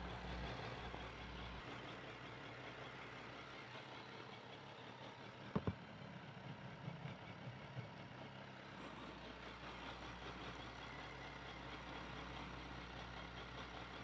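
BMW K1200GT's inline-four engine idling faintly under a steady hiss, with two small clicks about five and a half seconds in.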